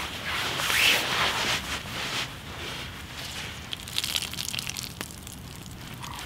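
A newly lit campfire of split elder and damp sticks crackling, with rustling and crunching of twigs and dry leaf litter as someone moves beside it. The crunching is loudest in the first two seconds; a few sharp crackles come about four seconds in.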